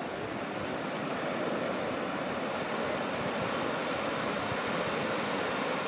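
Low surf breaking on a sandy beach: a steady rushing wash of waves that swells a little about a second and a half in.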